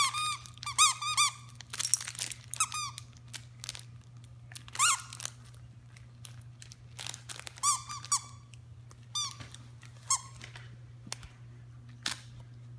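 Wire fox terrier chewing a plush duck squeaky toy, the squeaker giving short squeaks that rise and fall in pitch: a quick run of them at the start, then more scattered throughout, with light clicks from the chewing.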